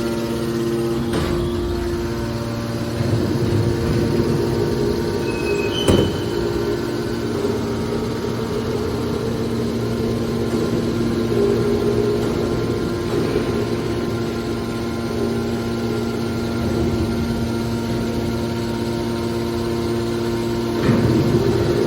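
Scrap-metal baler running: a steady motor and hydraulic pump hum, with a sharp bang about six seconds in and brief knocks near the start and near the end.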